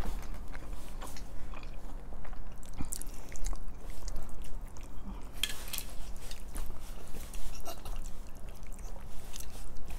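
Close-up chewing and wet mouth sounds of people eating spaghetti in sauce, with noodles slurped off a fork and scattered small clicks and smacks; a louder stretch comes about five and a half seconds in.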